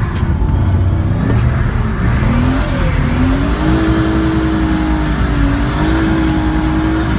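BMW E36 325's M50B25 straight-six revving hard, heard from inside the cabin: the engine note climbs for about two seconds, then holds high with a brief dip.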